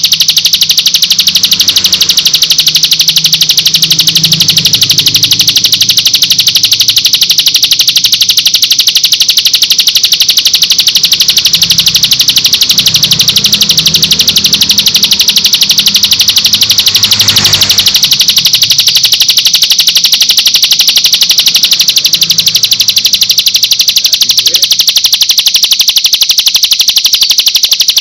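A prinia (ciblek) singing a fast, unbroken high trill, recorded and played loud as a song-tutoring track for cage birds. A faint low rumble of background noise lies underneath.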